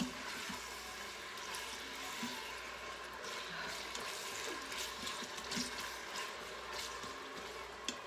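Sliced onions and minced garlic sizzling in hot olive oil in an Instant Pot's stainless steel inner pot on sauté mode, with a plastic spoon stirring and scraping against the pot and scattered clicks.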